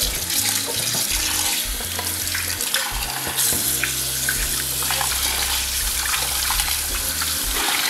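Kitchen tap running steadily into a glass bowl of raw chicken drumsticks in a stainless steel sink, with splashing as hands rub and rinse the drumsticks under the stream.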